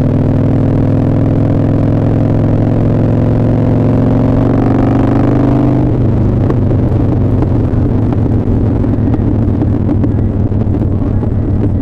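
Motorcycle engine pulling under throttle, its pitch rising steadily for about six seconds, then dropping suddenly to a lower, rougher note as the rider shifts up or rolls off. Heard muffled through a leather riding jacket.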